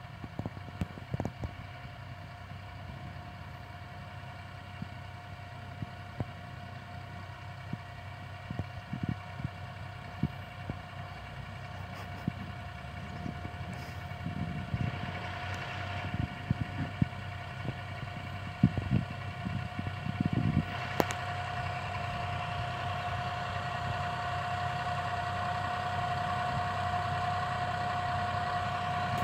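Massey Ferguson 4708 tractor's diesel engine running steadily while pulling a precision seed drill, growing louder as it approaches, with a steady whine that strengthens over the second half. A few short knocks come through in the middle.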